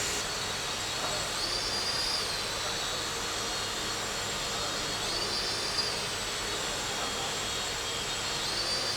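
Toy sensor helicopter's small electric motor and rotor whirring with a steady high whine. The pitch rises briefly and falls back three times, about every three and a half seconds, as the motor speeds up.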